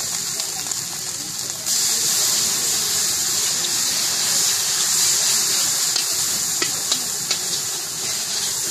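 Battered slices deep-frying in hot oil in an iron karahi: a steady sizzling hiss that gets louder about two seconds in, with a few sharp pops scattered through it.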